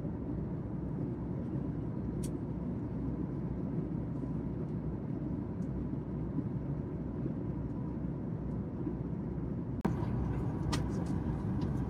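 Steady cabin noise of a Boeing 737 MAX 8 at cruise: the low rumble of airflow and its CFM LEAP-1B engines, with a faint steady hum. About ten seconds in there is a click, then a few light clicks.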